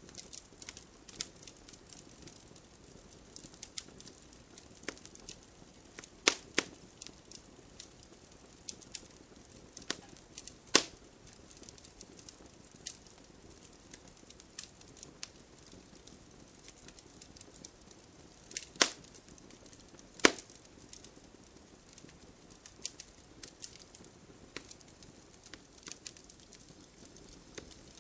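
Bonfire crackling with frequent small pops and a few louder sharp snaps, over a soft steady hiss of light rain.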